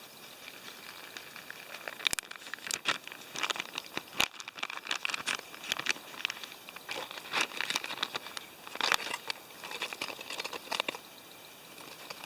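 Plastic packaging rustling and crinkling in irregular bursts as a bag of homemade oatmeal breakfast mix is handled and opened.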